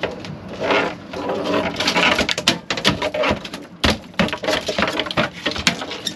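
Barracuda thrashing on a fiberglass boat deck, its body slapping and knocking against the floor in a rapid, irregular run.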